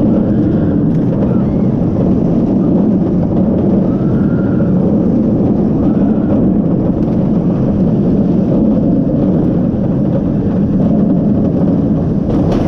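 B&M inverted roller coaster train running along its track at speed, a steady loud rumble mixed with wind buffeting the camera microphone.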